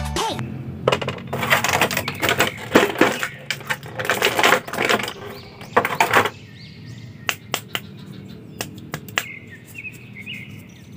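Thin clear plastic packaging crinkling and rustling as a small plastic action figure is unwrapped. Then it settles to a few separate sharp plastic clicks as the toy's small shield is handled and pressed onto its arm.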